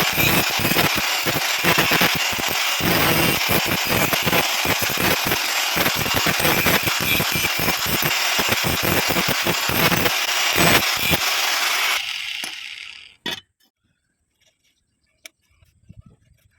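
Stick welding arc: a steady, dense crackling sizzle that stops about twelve seconds in, followed by one sharp metallic tap and a few faint ticks.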